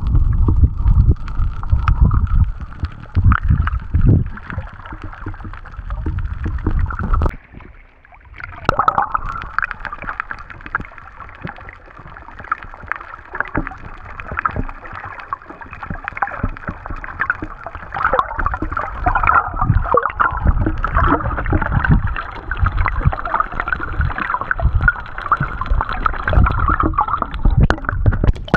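Muffled water sloshing and gurgling over an underwater action camera's waterproof housing, with irregular low rumbles as the camera moves through the water. The sound drops away briefly about eight seconds in, then resumes.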